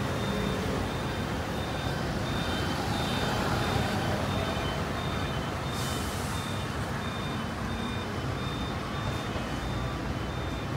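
Steady street traffic noise with a high electronic beep repeating evenly, less than a second apart, like a vehicle's reversing alarm. A short hiss comes about six seconds in.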